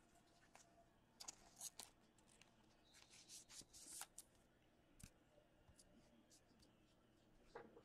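Faint, brief rustles and slides of trading cards being handled and set down, with a small tap about five seconds in.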